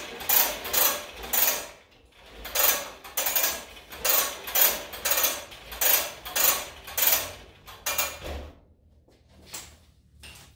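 Compressed air from a shop air hose hissing in a string of short bursts, about two a second, stopping about eight seconds in.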